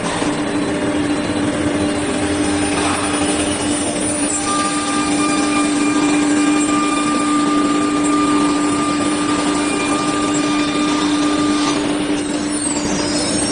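CNC router machinery running: a steady motor drone with a constant low hum. A higher steady whine joins about four seconds in and drops away near the end.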